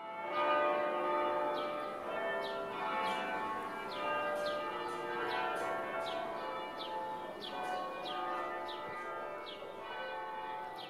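Church bells ringing, struck about twice a second, with the long ringing tones of several bells overlapping.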